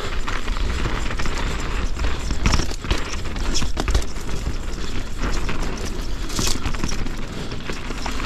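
Enduro mountain bike ridden fast down rough dirt singletrack: tyres rolling and crunching over dirt and rocks, with many sharp clatters and knocks from the bike over a steady low rumble.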